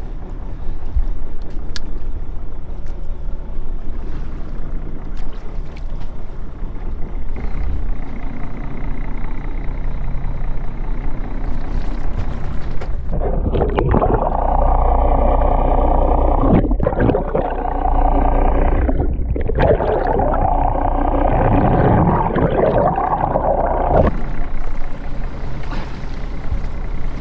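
Lobster boat's engine running at idle with water around the hull, heard through a GoPro held over the sea. About 13 seconds in the GoPro goes underwater and the sound turns muffled, with a steady hum, until it comes back up about 24 seconds in.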